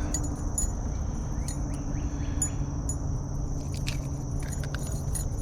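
Steady rush of a fast-flowing creek with a steady high insect drone over it, and scattered light clicks.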